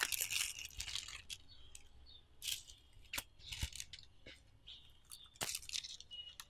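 Clear plastic sticker packets crinkling and rustling as they are handled and laid down on a cloth, in a few short scattered crackles, the loudest about two and a half and five and a half seconds in.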